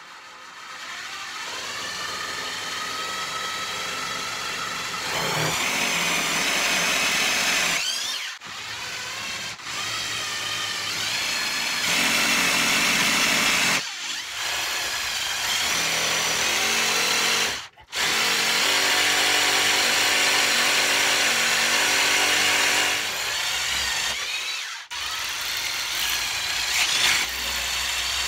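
Corded electric drill boring holes into a wall, running in several long runs with short stops between, its whine shifting in pitch as it speeds up and bites.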